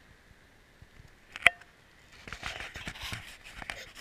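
A single sharp click about a second and a half in, then irregular scraping and rustling over the asphalt shingles as the heating cable is handled and laid out on the roof.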